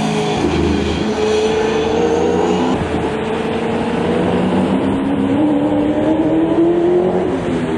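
Holden VZ Commodore V8 Supercar's 5.0-litre V8 engine running hard as the race car laps the circuit. Its pitch sags around three seconds in, then climbs steadily over the last few seconds.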